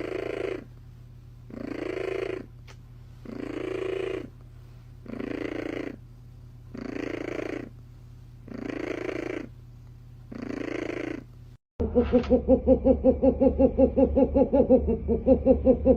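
A cat purring loudly, swelling in bursts about every two seconds with each breath. Near the end, after a cut, a louder cat purr-like sound pulses quickly, several times a second.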